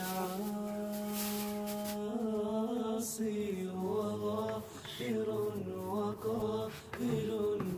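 Background vocal music: a slow chanted melody sung a cappella, with long held notes.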